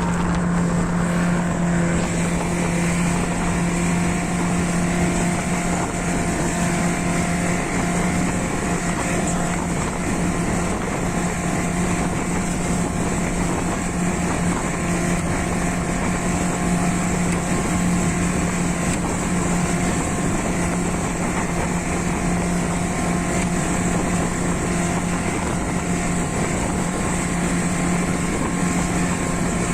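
Motorboat engine running at a steady speed, a constant unchanging drone over the rush of the boat moving through the water.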